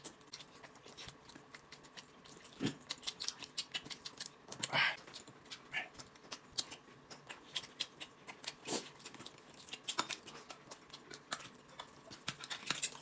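Close-up eating sounds of dumplings: wet chewing and lip-smacking with light clicks of chopsticks on the plate, heard as many short, irregular smacks and clicks, a few louder than the rest.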